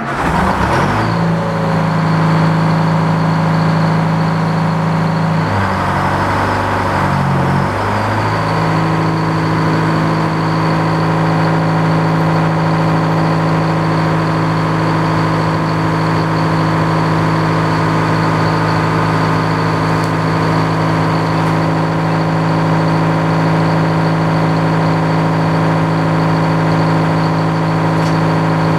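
Antique Frick sawmill running: its engine drives the circular saw at a steady speed, with a thin high whine over it. The engine note dips and wavers briefly about six seconds in, then settles.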